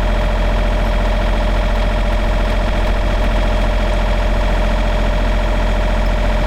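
John Deere 35D mini excavator's diesel engine running steadily at idle.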